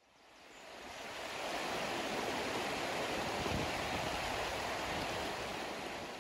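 Steady rush of flowing water, fading in over the first second or so and fading out near the end.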